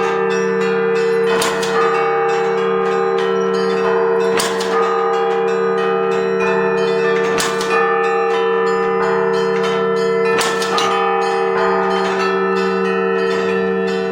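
Russian Orthodox church bells rung in a repeating peal: a set of smaller bells struck in a changing pattern, with a heavier stroke about every three seconds, over two steady low tones.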